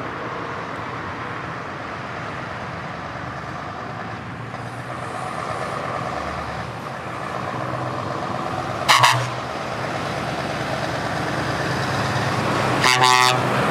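Heavy truck diesel engines running as a Scania and a DAF roll slowly closer, the sound gradually getting louder. Two short loud blasts cut through, one about nine seconds in and a pitched horn toot near the end.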